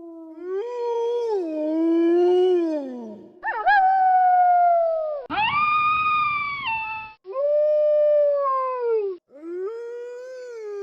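Wolves howling: about five long howls one after another, each sliding in pitch and falling away at its end, several starting and stopping abruptly.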